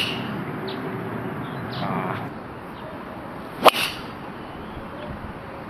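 Golf driver striking a ball off the tee: one sharp crack a little over halfway through, with a short smear after it.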